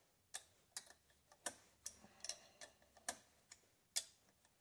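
Faint, fairly regular small metallic clicks, about two and a half a second, as a nut and lock washer are turned by hand onto a starter mounting stud of a Kohler Magnum M18 engine.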